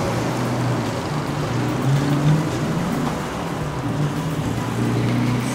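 Street traffic: a motor vehicle engine running with a steady low hum over road noise.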